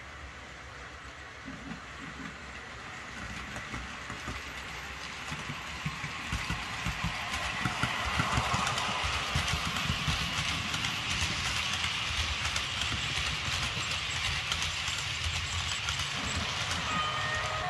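Bachmann OO gauge Class 90 model electric locomotive running with its DCC sound, hauling container wagons whose wheels rattle over the track. The sound grows louder over the first half as the train approaches, then holds steady as the wagons roll past.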